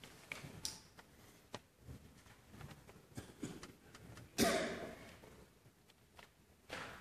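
Hushed concert hall in the pause before a band starts playing: scattered rustles, small clicks and breath sounds from the players and audience. One louder sudden sound comes about four and a half seconds in, and a smaller one near the end.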